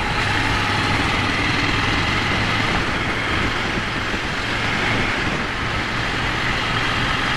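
Ducati Monster 797's air-cooled L-twin engine running at a steady cruise, under wind and road noise.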